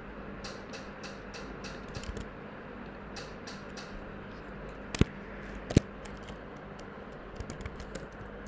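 Typing on a computer keyboard: a quick run of key clicks, then two sharper, louder clicks about five and six seconds in, and a few more keystrokes near the end.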